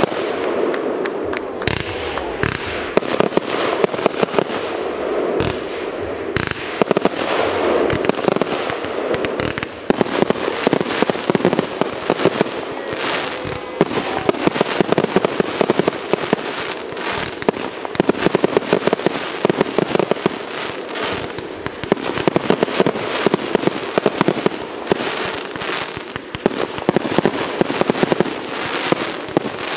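Fireworks display with aerial shells bursting one after another, dense crackling and many sharp bangs and pops without a break.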